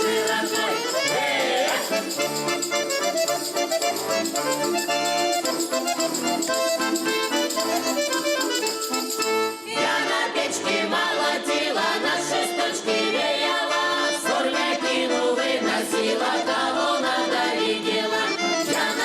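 Accordion playing a Russian folk song, its bass and chords keeping an even beat, with voices singing at times. There is a brief break about ten seconds in, after which the playing goes on.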